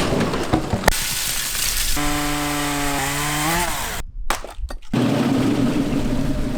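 Chainsaw engine running loud and steady, revving up about three and a half seconds in, then breaking off into a second of choppy gaps before running steady again.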